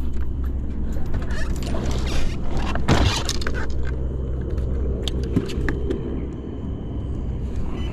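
Bass boat's outboard motor running steadily under way, with a sharp knock about three seconds in.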